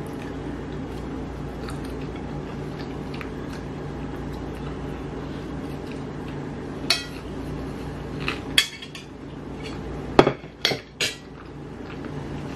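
A metal fork clinking against a ceramic dinner plate, a few sharp clinks in the second half with the loudest cluster near the end, over a steady low background hum.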